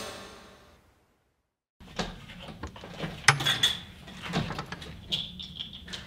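A heavy slam rings out and fades away within the first second. After a short silence come scattered knocks, clicks and clatter in a small room, like doors or latches being handled.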